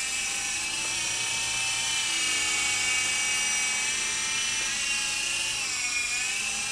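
Hercules 3.5-channel electric coaxial RC helicopter in flight: a steady whine of its small electric motors and spinning rotors. The pitch dips briefly about six seconds in.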